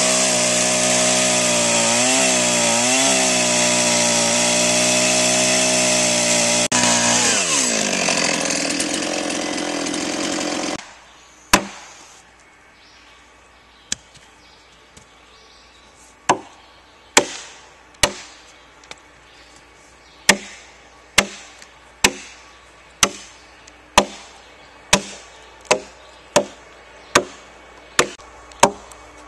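A chainsaw runs under load, cutting into a log, then drops in pitch as the throttle is let off and stops abruptly about eleven seconds in. Sharp chopping strikes on wood follow, about one a second, as the notch is cut out by hand.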